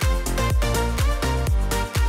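Background workout music with a steady beat, about two beats a second.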